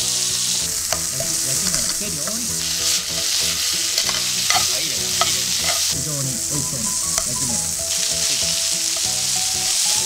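Flour-dusted thin-sliced pork searing in sesame oil in a nonstick frying pan, sizzling steadily, with a few sharp clicks of metal tongs against the pan and meat as the slices are turned. The sizzle shifts abruptly in strength several times.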